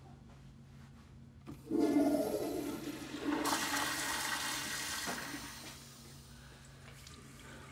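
Toilet flushing: a sudden rush of water starts about one and a half seconds in, surges again a little later, then fades away a few seconds after.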